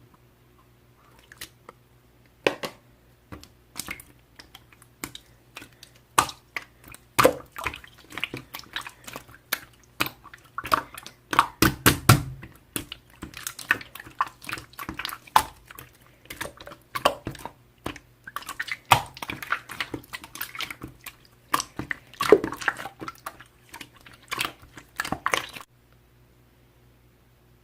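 Hands playing with slime: an irregular run of wet sticky clicks, squishes and small pops as it is pressed and stretched. The sounds stop suddenly near the end.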